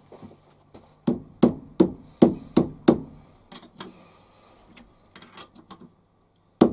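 Plastic-faced mallet striking a cast-iron block held in a lathe's four-jaw chuck: about six firm blows in quick succession, then a few lighter taps and one more firm blow near the end. The blows seat the block flat against the step in the chuck jaws.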